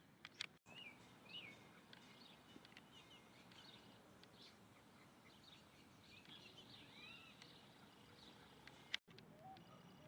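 Faint, busy twittering of several small birds, short chirps and quick pitch slides overlapping throughout. A sharp click cuts the sound out briefly about half a second in and again near the end.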